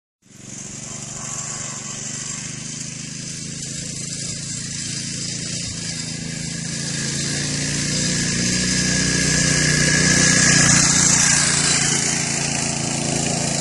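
Custom Baja MB165 minibike's small engine running steadily as it is ridden, growing louder as it comes near, loudest about ten seconds in, then easing slightly as it moves away.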